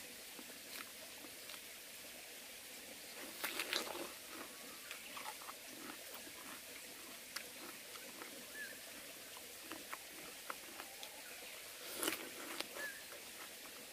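A person biting and chewing Korean melon (chamoe). Crisp crunching bites come about three and a half seconds in and again near the end, with soft chewing clicks between them over a faint steady hiss.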